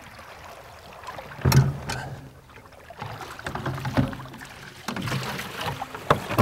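Several sharp knocks and clunks of gear being handled on a boat, the loudest about a second and a half in, with water noise beneath.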